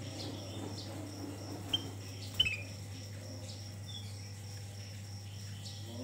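Caged kutilang emas (ruby-throated bulbul) giving a few short, sharp chirps, the loudest about two and a half seconds in. Under it run a steady low hum and a faint, steady high-pitched whine.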